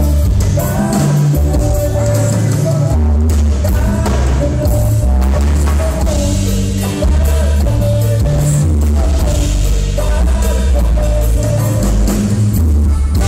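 Live band playing an amplified number: button accordion carrying the melody over electric bass, drum kit and congas, with a strong bass line changing note every second or so.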